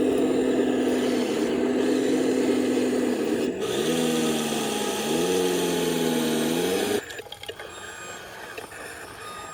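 Electric drive motors and gearboxes of a radio-controlled model construction machine whining steadily. About three and a half seconds in, the pitch drops and then climbs again as the motors slow and speed up, and the whine cuts off suddenly near the end, leaving faint ticking.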